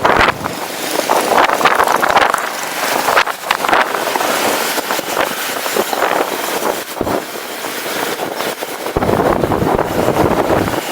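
A moving vehicle's road and engine noise, with wind buffeting the microphone.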